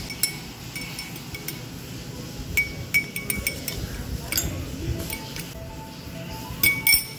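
Metal spoon clinking against the inside of a glass of hot water as salt is stirred to dissolve it. The taps are quick and irregular, each with a short bright ring, and the loudest come in clusters about two and a half to three and a half seconds in and just before the end.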